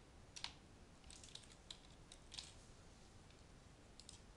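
Faint, scattered keystrokes on a computer keyboard, a few taps at a time at an uneven pace, as login details are typed into a form.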